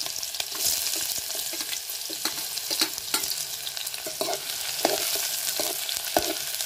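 Chopped onion sizzling in hot oil in a metal pan, being fried for a tempering, with a metal spoon scraping and clicking against the pan as it is stirred.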